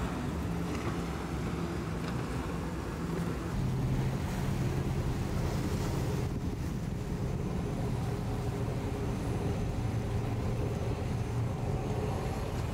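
Powerboat engines running at speed, a steady low drone over the rush of the wake and wind on the microphone. The drone drops to a lower pitch about three and a half seconds in.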